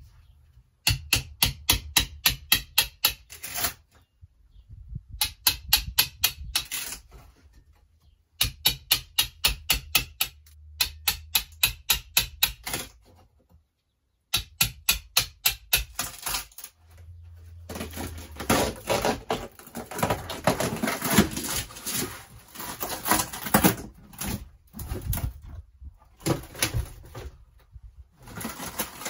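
Quick runs of hammer blows, about five a second, knocking rotten wood loose from an RV's cabover front wall, stopping and starting several times. In the second half comes irregular cracking and tearing as the rotted wood and paneling are pulled away by hand.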